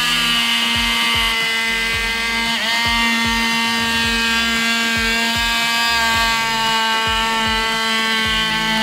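Electric oscillating sander with a triangular pad running steadily with a high buzzing whine as it sands rough sprayed texture off a boat's gunwale cap, preparing the surface for adhesive. The pitch sags briefly about two and a half seconds in and drops as the tool slows at the very end.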